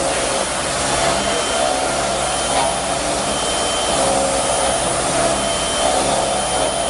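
CNC machine running, a steady airy whirr with a thin high whine held throughout.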